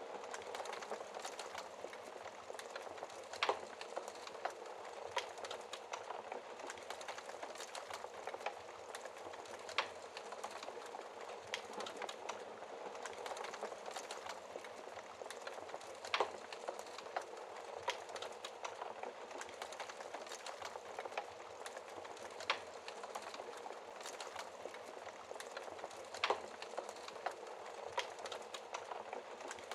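Wood fire in a fireplace crackling steadily: a soft hiss full of small crackles, with a few louder, sharp pops from the burning logs every several seconds.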